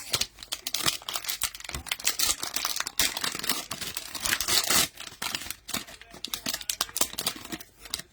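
Cellophane wrapper of a trading-card cello pack crinkling and tearing as it is opened by hand, a dense run of irregular crackles with a short lull midway.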